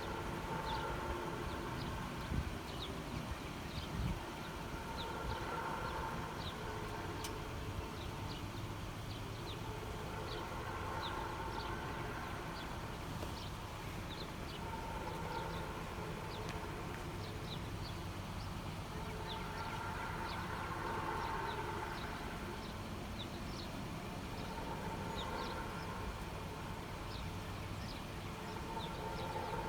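A distant, unexplained wailing tone from the sky, swelling and fading about every five seconds over a low rumble, with small birds chirping throughout.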